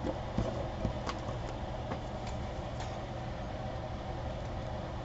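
Scattered light clicks and taps of paper being cut and handled at a craft desk, over a steady low hum.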